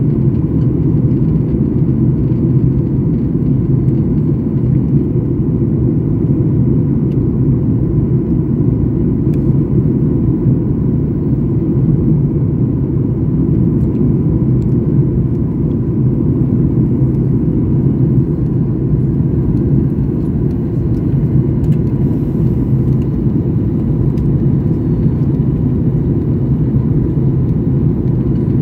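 Jet airliner cabin noise heard inside the cabin while climbing after takeoff: loud, even low engine and airflow noise, with a faint steady high tone over it.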